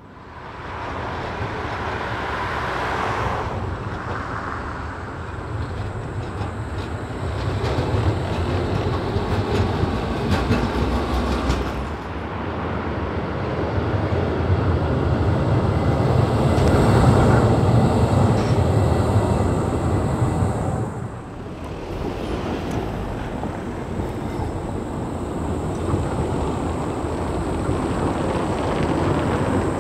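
Škoda 15T ForCity low-floor trams running on street tracks: a steady rumble of wheels on rail and traction drive that swells and fades as trams pull away, approach and pass. A run of clicks comes about a third of the way in, and a faint steady high whine sits over the rumble.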